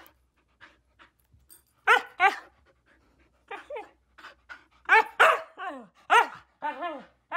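Husky 'talking': a series of short whining calls that bend up and down in pitch, bunched from about two seconds in. Quiet panting comes before them.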